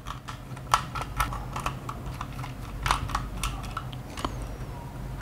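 Screwdriver unscrewing the small screws of a plastic DIN-rail RC snubber module's case: irregular sharp clicks and ticks of the driver tip and plastic housing.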